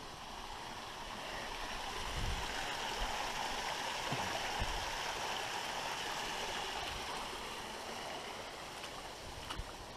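Running water of a small creek spilling over a low drop, a steady rushing hiss that grows louder a couple of seconds in and eases off again near the end.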